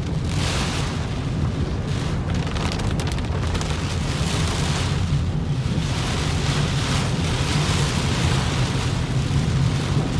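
Heavy rain and floodwater splashing over a steady low rumble, the hiss swelling and easing every second or two.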